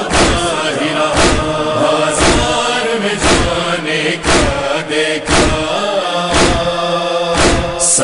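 Voices chanting a held refrain in chorus between the verses of a nawha, over heavy beats about once a second.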